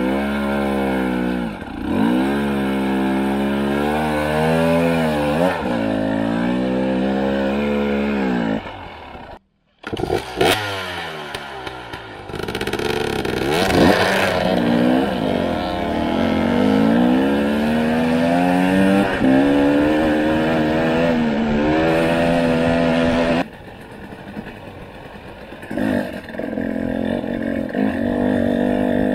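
Two-stroke Husqvarna TE300i enduro motorcycle engine revving hard and unevenly, its pitch rising and falling again and again with the throttle while it climbs a steep dirt trail. There is a brief silent break about nine seconds in, and near the end the engine sounds further off and quieter.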